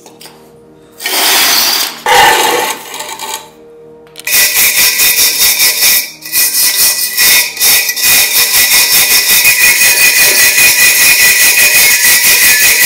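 Hand wire brush scrubbing loose rust off a rusted steel oil-lamp part in quick back-and-forth strokes, about four a second, starting about four seconds in, with a steady high tone running under the scrubbing. Before it, two short bursts of loud scraping noise.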